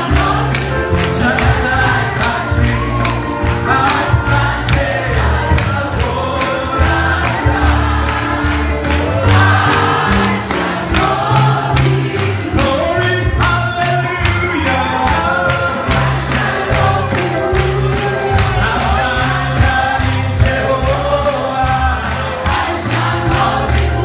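Congregation singing gospel praise music together with an amplified band: many voices over a steady beat and heavy bass.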